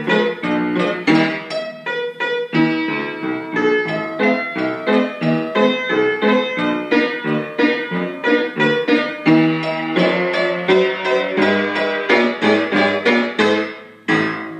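Upright piano played four hands, a steady run of short notes at about three a second. Near the end a brief break, then one final chord that rings out and fades.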